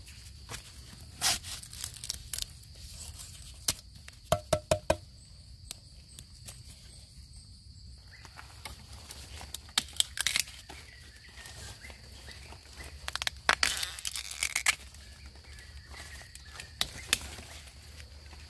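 Rustling, crackling and snapping as a bamboo grove is worked through on foot, with dry leaves and bamboo stems being handled and bamboo shoots being broken off. A quick run of about five knocks comes around four seconds in. A steady high insect drone runs underneath.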